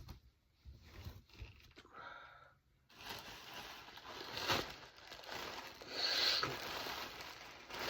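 Plastic clothing bags crinkling and rustling as clothes are pulled out and handled, with a few soft knocks at first and steady, continuous crinkling from about three seconds in.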